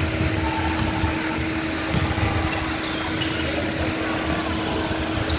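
Gym ambience during a basketball game: players' running footsteps and a few brief sneaker squeaks over a steady hum.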